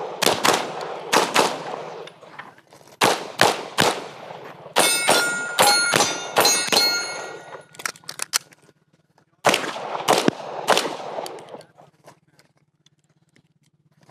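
Pistol gunfire during a practice stage run, shots coming in quick pairs and threes with short pauses between groups. In the middle stretch, steel targets ring with each hit.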